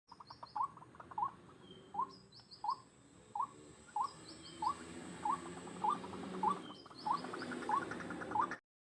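White-breasted waterhen (dahuk, ruak ruak) calling: a short rising note repeated evenly, about one and a half a second, with fainter high chirps in twos and threes behind it. The sound cuts off suddenly shortly before the end.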